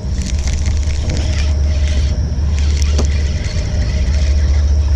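Boat motor running steadily: a constant low rumble with a faint, thin high whine above it and a few light clicks.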